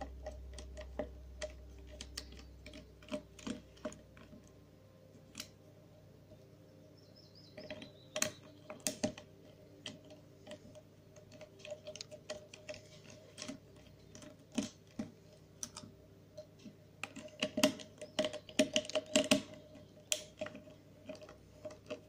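Small Phillips screwdriver backing the tiny screws out of a Panasonic NV-G1E camcorder's plastic viewfinder housing: scattered clicks and taps, the never-before-undone screws breaking loose with a click, with a flurry of clicks near the end.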